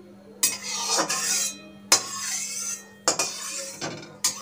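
A metal spoon or spatula clinks against a kadai and scrapes around its bottom, stirring a little oil as it heats: four sharp strikes, each followed by about a second of scraping.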